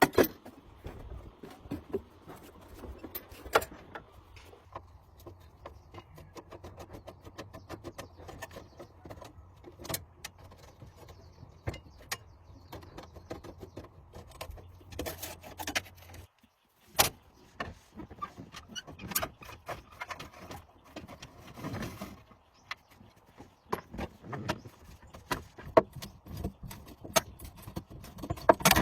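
Irregular clicks and knocks of handling work, loudest right at the start, over a low steady hum that stops about halfway through.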